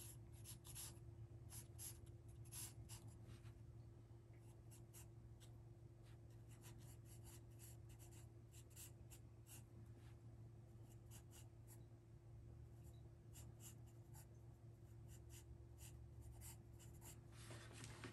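Faint scratching of a pencil drawing on paper: many short, quick strokes, some in rapid runs, with brief pauses between them.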